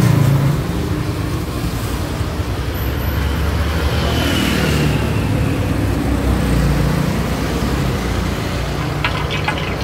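Motor vehicle traffic running steadily: a low engine and road rumble.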